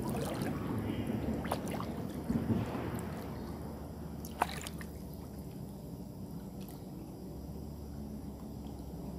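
Lake water sloshing and splashing around a person wading in up to the chest, with a few sharp clicks and splashes in the first half, the loudest about four and a half seconds in. After about five seconds the water grows quieter.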